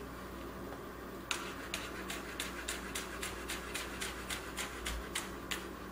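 Victorinox chef's knife thin-slicing a pea pod on a plastic cutting board: a fast, even run of light knife taps, about five or six a second, starting about a second in.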